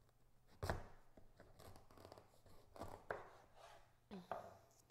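Kitchen knife cutting through a raw spaghetti squash: faint scraping as the blade works through the tough rind, with a few knocks of the knife and squash against the cutting board.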